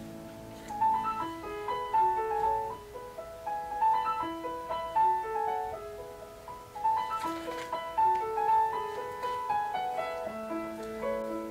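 Background music: solo piano playing a melody with chords.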